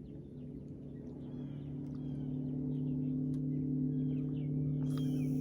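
Steady motor hum with a few even tones, growing louder over the first few seconds and then holding, while birds chirp.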